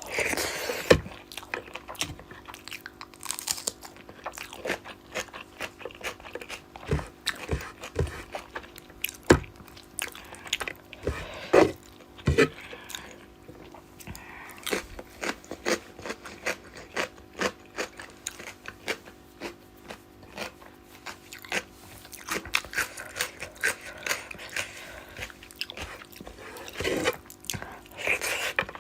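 Close-miked eating: a person chewing and biting mouthfuls of fish curry and rice, with many small, irregular wet clicks and smacks. A faint steady hum sits underneath.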